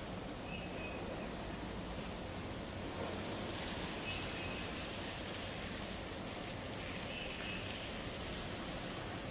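Steady rumble and hiss of city buses at a terminal: a diesel bus pulling away across wet pavement while others idle, with faint short high chirps about three times.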